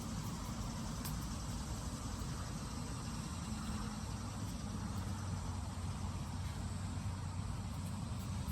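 A steady low hum under a constant outdoor hiss, with a single faint click about a second in.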